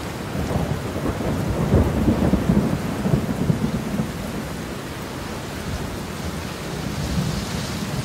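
Heavy rain falling steadily, with a rolling rumble of thunder that is loudest from about two to four seconds in before settling back under the rain.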